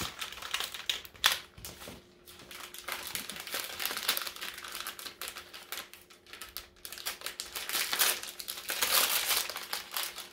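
Gift wrapping paper crinkling and rustling as it is unwrapped by hand, in irregular bursts with brief pauses.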